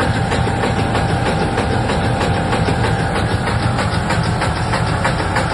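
Cubixx 100L industrial meat dicer running with product loaded, dicing it into cubes: a steady loud machine noise with rapid regular clatter and a thin steady whine over a low hum.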